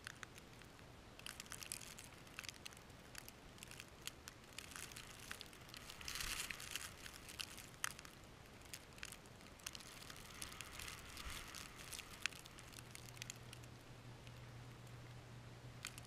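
Faint, quick light clicks and crinkly crackles close to the microphone: a blue jay pecking at and picking up peanuts in the snow. The clicks start about a second in, are thickest midway and thin out after about twelve seconds.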